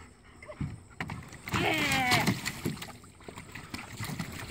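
Water splashing and sloshing in a plastic kiddie pool as a German shepherd moves about in it. About a second and a half in comes a short falling cry.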